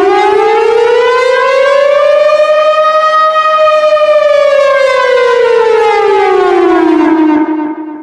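Civil defense siren sounding a wail, the danger alarm: one slow rise in pitch to a peak about halfway, then a fall, fading out near the end.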